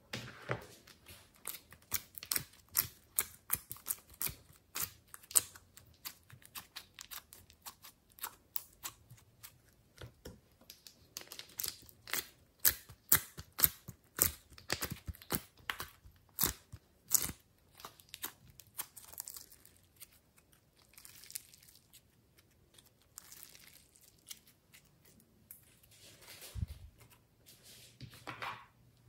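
Glossy slime being squished and pulled by hand, a rapid run of sticky clicks, pops and crackles. The sounds thin out to softer, scattered squelches over the last ten seconds.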